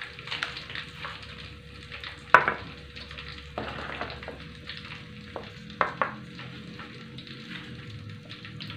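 A few sharp clicks and knocks of a spoon and stone pestle against a stone mortar (cobek) as salt is added to fried chillies for sambal belacan, the loudest about two and a half seconds in. Under them runs a steady hiss.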